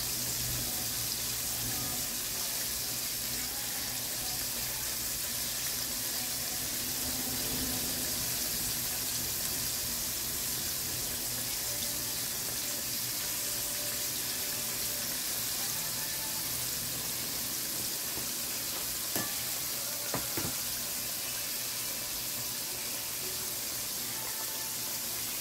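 Flour-dredged chicken tenders shallow-frying in hot oil in a heavy pot, giving a steady sizzle.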